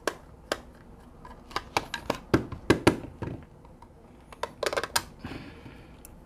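Sharp clicks and knocks of the plastic housing of a car diagnostic interface being handled and taken apart, coming in an irregular cluster from about one and a half to three seconds in and again around five seconds, then a brief scraping rustle.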